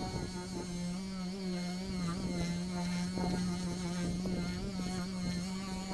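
Dual-action orbital polisher running, buffing compound into a car's hood paint with a steady, even-pitched hum.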